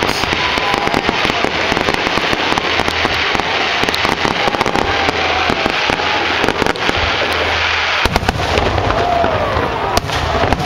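Fireworks display: aerial shells bursting in a dense, unbroken barrage of overlapping bangs and crackles.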